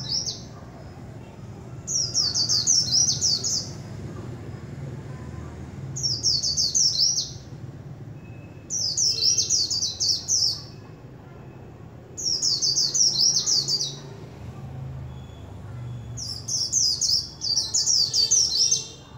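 Caged white-eye singing: five fast, high twittering song phrases of one to two seconds each, spaced a few seconds apart.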